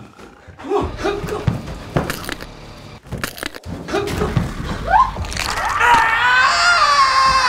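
Short, broken frightened cries and breaths, then a rising cry about five seconds in that turns into a long, loud, wavering scream.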